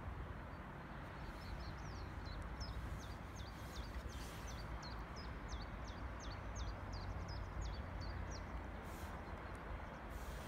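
A small bird singing a quick run of high chirps, each dropping in pitch, starting about a second in and stopping near the end, over a steady low outdoor rumble.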